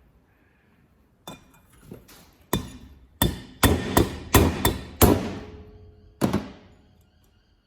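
Hammer blows on a spark plug socket set over a Honda CRF450R valve spring retainer, knocking the retainer down to free the valve collets. About ten sharp metallic strikes over some five seconds, the heaviest in the middle, some with a short ring.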